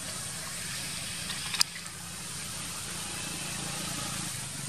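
Steady hum of motorbike and road-traffic engines, with one sharp click about a second and a half in.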